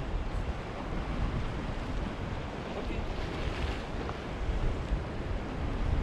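Sea waves washing against a rocky shore, one wash swelling about three seconds in, with wind buffeting the microphone.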